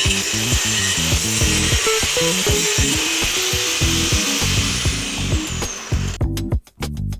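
Handheld angle grinder cutting through a plastic crate with a loud hissing grind. The grinder is then lifted off and its high whine falls as the disc spins down, stopping about six seconds in.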